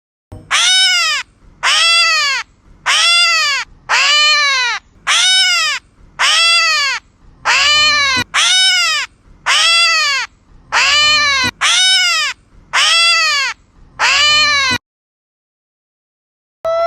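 A bird giving a long series of about a dozen wailing, baby-like calls, roughly one a second, each rising and then falling in pitch.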